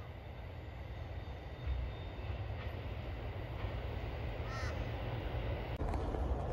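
A crow cawing a few short times over a steady low rumble from a distant freight train.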